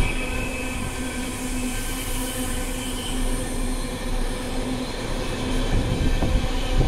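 Container wagons of a freight train rolling past on the rails: steady wheel noise with a steady whining tone over it, and a few knocks near the end.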